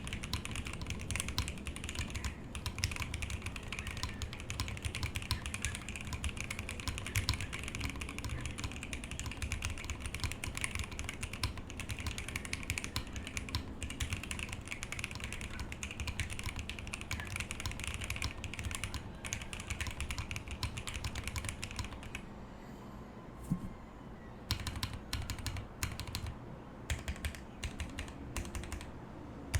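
Fast typing on a TGR 910 v2 ME 65% mechanical keyboard: lubed and filmed Alpaca linear switches with CRP keycaps, in an o-ring-mounted polycarbonate plate with no foam. The keystrokes come in a dense, steady stream, drop to a few scattered presses about 22 seconds in, then pick up again about two seconds later.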